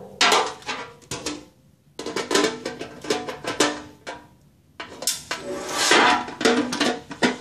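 Metal lid of a portable gas grill being handled and turned over while its handle is fitted: repeated knocks and rattles with the lid ringing after them, in three bouts separated by short pauses.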